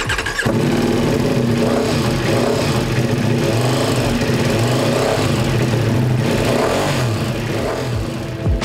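Ducati Multistrada V4 Pikes Peak's V4 Granturismo engine, through its Akrapovic exhaust, running hard under throttle on a rolling-road dyno. The engine note comes in about half a second in, holds loud with a wavering pitch, and drops away near the end.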